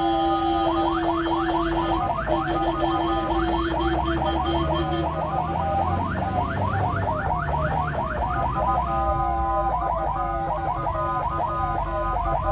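Ambulance's electronic siren sounding in a fast yelp, with rapid rising sweeps repeating several times a second over steady tones. A low steady tone under it drops out about five seconds in and returns near the end.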